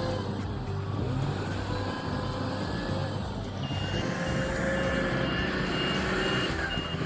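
Large diesel engine of a heavy earthmoving machine, such as a mining wheel loader, running steadily. From about halfway in, a reversing alarm beeps at a steady quick pace, a little over two beeps a second.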